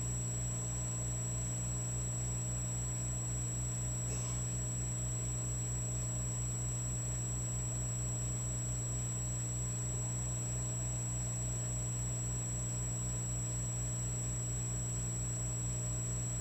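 Electric fireplace log set running: a steady electrical hum with a fast low throb underneath and a thin high whine.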